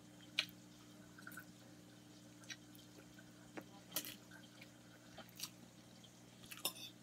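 Quiet eating sounds of spaghetti: a metal fork clicking and scraping in a ceramic bowl, with soft wet chewing, about six small clicks over a steady low hum.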